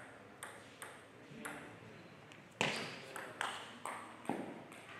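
Table tennis ball being struck: a string of sharp pings off bat and table, a few softer ones first, then louder, quicker hits about half a second apart from about halfway, as in a rally.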